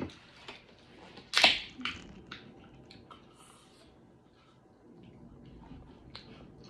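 A drink can's pull tab popped open about a second in, a sharp crack with a short fizzing hiss, followed by a few light clicks as the can and straw are handled. Quiet sipping through a plastic straw near the end.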